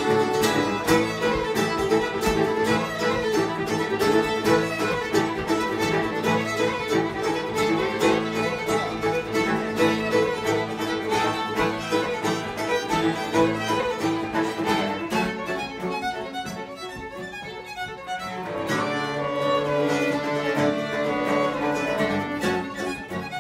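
Live acoustic string band, two fiddles with acoustic guitar and mandolin, playing a lively fiddle tune. About two-thirds of the way through the playing thins out and drops in level for a few seconds, then the full band comes back in.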